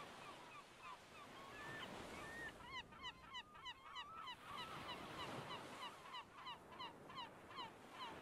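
A flock of birds calling: many short, downward-sliding calls repeated several times a second and overlapping, faint, over a soft steady hiss.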